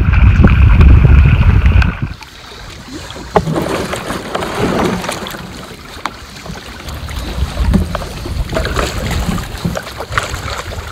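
Strong wind buffeting the microphone for about two seconds, then, after a sudden drop, softer wind with scattered splashes and knocks from a kayak paddle being worked.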